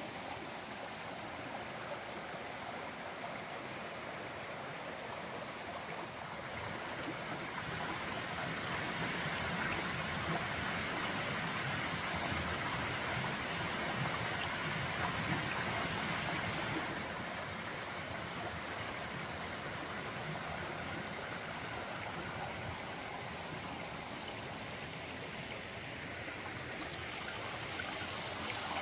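Shallow rocky creek flowing over stones: a steady rush of running water, louder for several seconds in the middle.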